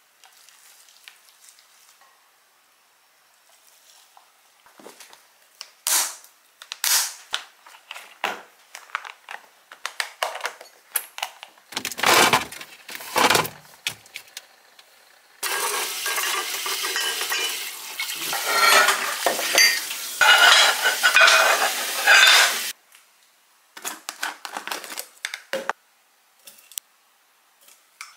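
Plastic food-storage containers and kitchenware being handled: scattered clacks, knocks and lid clicks, with a steady rushing noise for about seven seconds in the middle and a few more clicks after it.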